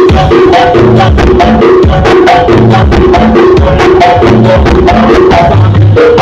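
Loud music with a fast, steady beat, heavy bass and a short melody that keeps repeating.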